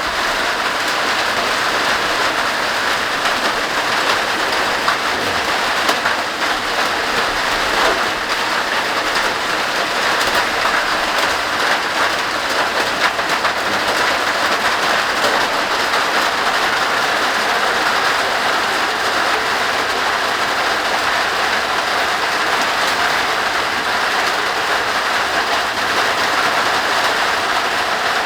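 Heavy rain falling steadily in a thunderstorm downpour: an even, unbroken hiss.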